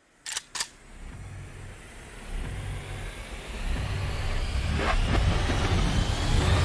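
Intro sound effects: two sharp clicks in quick succession, then a low rumble that builds steadily louder, with a faint rising whine toward the end.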